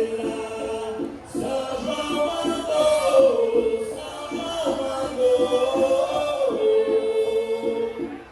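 Festa junina music for a quadrilha dance: a song with singing over a steady, rhythmic accompaniment.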